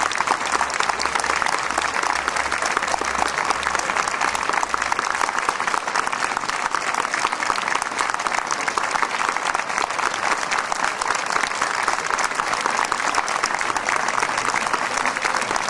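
An audience applauding: the steady, dense clapping of many hands.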